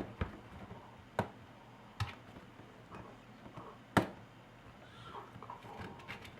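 Scattered sharp clicks and taps of small plastic and metal laptop parts being handled with a tool, five or so in all, the loudest about four seconds in.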